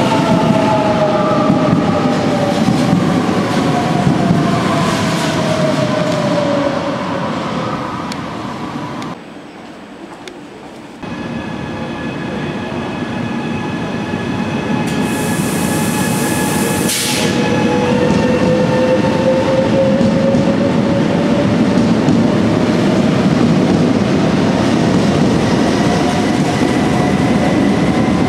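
Electric multiple-unit passenger trains in an underground station: traction motors whining down in pitch as one train slows along the platform, over a steady rumble of wheels on rail. After a short break, a brief high hiss around the middle, then a motor whine rising slowly in pitch as a train picks up speed.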